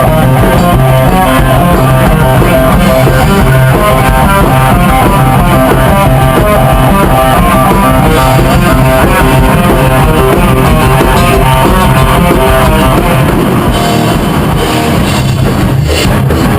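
Loud heavy rock played by a band on guitars and drum kit. Near the end the guitars thin out and single drum hits stand out.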